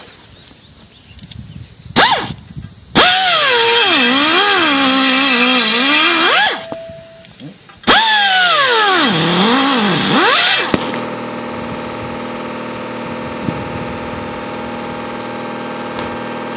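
Hand-held air tool with a long bit elongating ('egging out') a skid-plate mounting hole: a short blip, then two runs of a few seconds each, its whine dipping and rising as the bit bites into the steel and frees up. After the second run a steady, quieter hum sets in.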